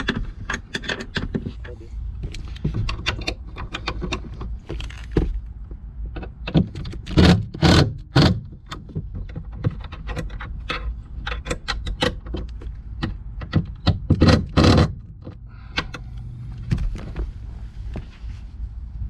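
Hand tools working metal fasteners: a box wrench snugging bolts at the seat-mount brackets and a screwdriver turning screws, a run of clicks, scrapes and knocks. The loudest knocks come in a cluster about seven seconds in and again about fourteen seconds in.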